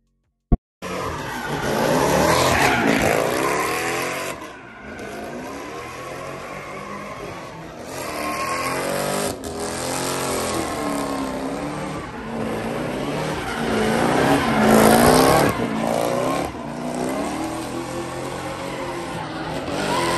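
Car engine revving up and down over and over with tyres squealing as the car spins donuts. It starts suddenly about a second in, after a short silence and a click.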